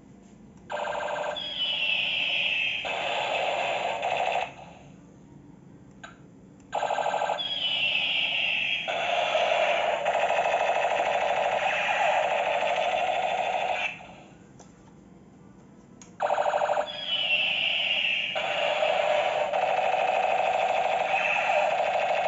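Toy machine-gun rifle's electronic sound effect, set off three times with short pauses between. Each time it gives a rapid electronic rattle, then a falling whistle-like tone over a long warbling electronic loop.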